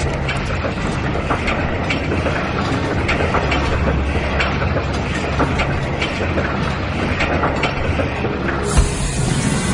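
Cartoon soundtrack of continuous mechanical clattering and ticking, many quick clicks over a low hum. A single thump comes near the end, and a brighter hiss follows.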